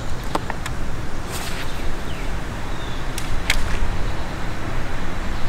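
Spinning rods being cast and worked from a boat deck: a few sharp swishes and clicks of casts and reels, over a steady low rumble.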